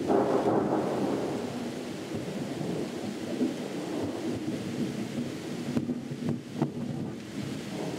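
Distant thunder rumbling, swelling at the start and then slowly rolling away over several seconds.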